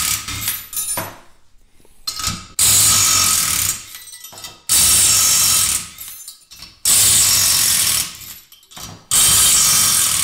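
Impact wrench hammering in four bursts of about a second and a half each, about two seconds apart, backing out rocker studs that were torqued in and thread-sealed in a cylinder head.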